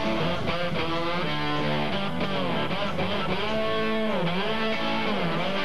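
Rock music led by electric guitar, with held notes that bend down in pitch and back up twice near the end.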